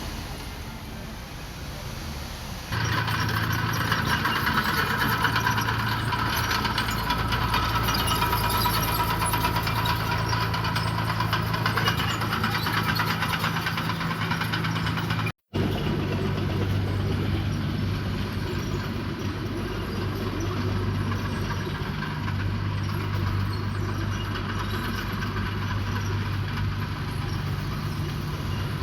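Heavy construction machinery diesel engines running steadily at a constant low note. The sound steps up louder about three seconds in and breaks off for an instant midway.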